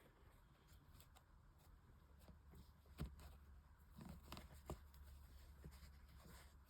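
Near silence with faint, sparse clicks and rustles from hand-sewing a leather bag handle: needle and thread worked through the leather, the sharpest click about three seconds in.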